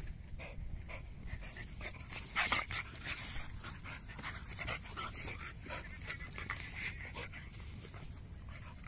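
Siberian husky and Labrador panting close by, a quick run of breathy pants with a louder burst about two and a half seconds in.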